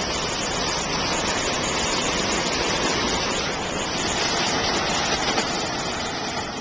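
Steady rushing of creek water, an even, loud hiss with no break.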